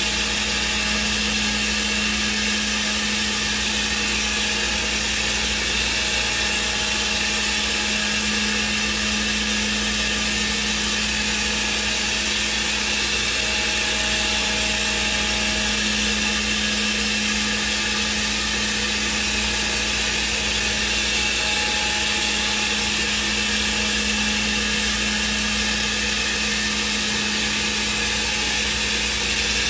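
Thermwood CNC router running steadily, its spindle giving a constant high hiss over a steady low hum, with no pauses or changes.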